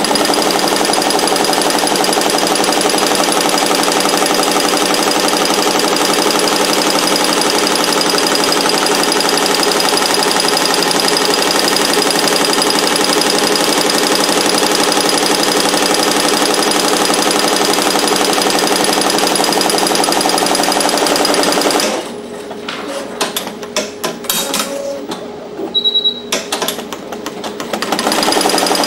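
Barudan multi-needle embroidery machine stitching a logo onto a cap, running fast and steady. About 22 s in the stitching drops to a few scattered clicks and knocks, then picks back up near the end.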